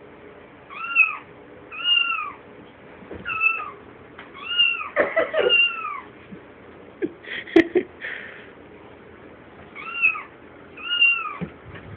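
Recorded cat meows, repeated about once a second, each rising then falling in pitch, with a pause a little after halfway. A sharp click comes about seven and a half seconds in.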